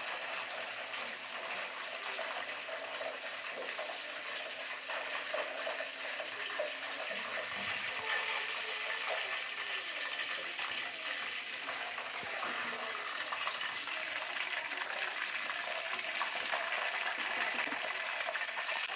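Masala-coated chicken pieces deep-frying in hot oil in an aluminium kadai, a steady dense sizzle with faint crackles.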